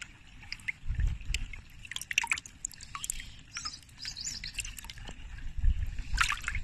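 Water splashing and dripping in a plastic bucket as a hand scoops out a small carp, with short, irregular splashes and drips. Two low rumbles come about a second in and again near the end.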